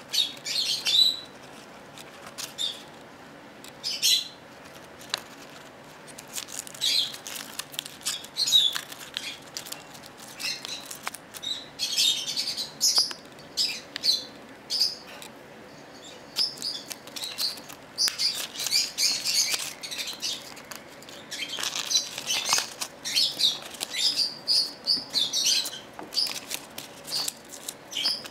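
Rosy-faced lovebird shredding paper with its beak: short, irregular bursts of paper crinkling and tearing with small beak clicks.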